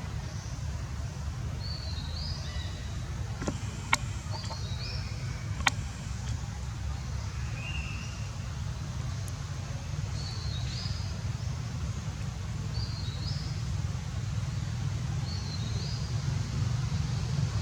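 A bird repeating a short high chirp every two seconds or so over a steady low rumble, with two sharp clicks about four and six seconds in.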